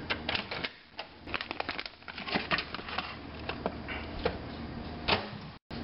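Handling noise in a kitchen: a plastic rice pouch crinkling and scattered clicks and knocks as the microwave is opened and the pouch is set on its glass turntable, with a louder knock about five seconds in.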